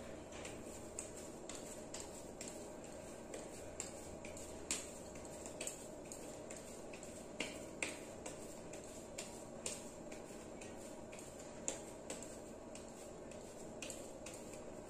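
Irregular soft clicks and light sticky smacks of wet palms pressing and rolling a stuffed semolina dough ball, over a steady low hiss.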